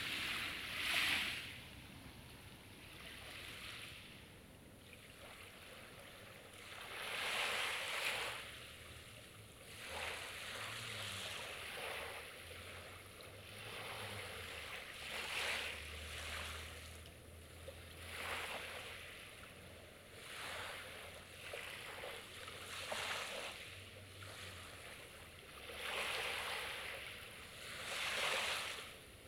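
Sea waves washing onto the shore, each wash swelling and fading, a new one every few seconds.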